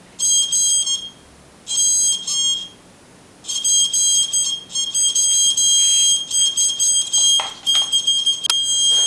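High-pitched electronic beeping of a motion detector test's audio output, signalling detection: two short bursts of fast beeps, then a long run of rapid chopped beeps from about a third of the way in. A few sharp clicks near the end.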